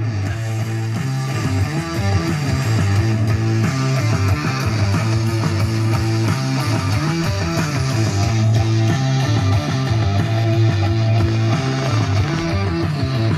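Guitar-driven rock music playing from an Alpine 7296 car stereo head unit through its speakers, turned up a little about two seconds in.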